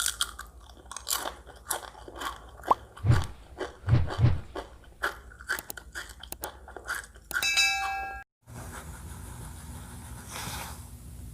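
Close-miked chewing and crunching of food, a quick run of crisp crackles with a few dull thuds. About seven seconds in a bright metallic ding rings for about a second. After it comes a steady low background.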